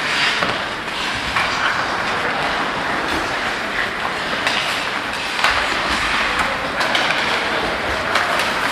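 Ice hockey play: skate blades scraping and carving the ice in a steady hiss, with scattered sharp clacks and knocks of sticks and puck.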